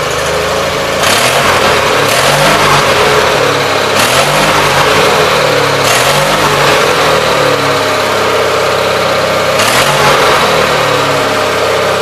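Gravely 817 tractor engine running through a new muffler with an extension piece, revved up and let back down several times. The exhaust note is free of its former big-block bark.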